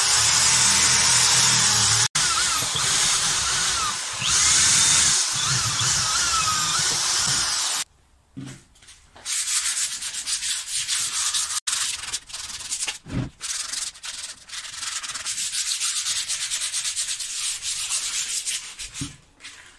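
Corded electric drill running with a small rotary abrasive bit against the edge of a wooden board. About eight seconds in it stops, and hand sanding follows: sandpaper rubbed back and forth on the wood in quick strokes.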